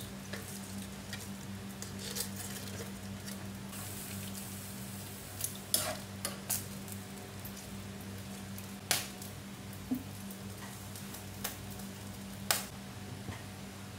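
A metal ladle stirring chicken gizzards in water in a pan on the stove. A few sharp clinks of the ladle, and near the end of a glass lid, against the pan ring out over a steady low hum.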